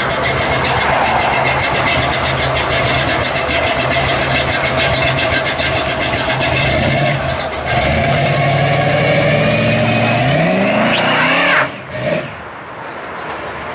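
Engine of a 1968 Chevy C10 pro street pickup running at a loping idle, then rising in pitch as it is revved and pulls away. About twelve seconds in it cuts to a quieter, steadier engine sound as the truck drives off.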